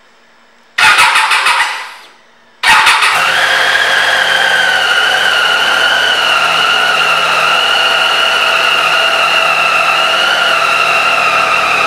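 Triumph Tiger 800 XRT's three-cylinder engine being started: a first burst a little under a second in fades away within about a second, then a second start about two and a half seconds in catches and settles into a steady idle.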